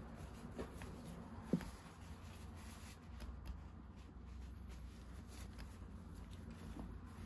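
Baby kitten suckling formula milk from a nursing bottle: faint wet sucking and smacking clicks, with two sharper clicks in the first two seconds.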